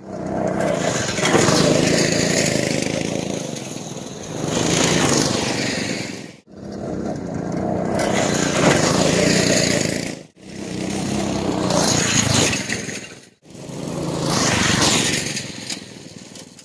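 Go-kart's small gasoline engine running as the kart drives past over dirt, getting louder and then fading with each pass. The sound comes in four short stretches, each cut off abruptly.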